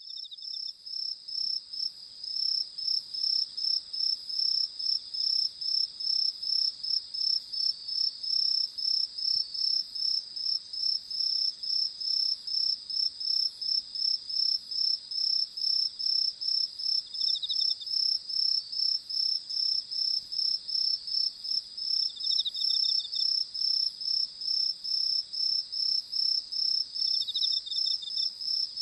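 Crickets chirping in a steady, even rhythm of about two to three high chirps a second, with a brief lower insect trill breaking in a few times.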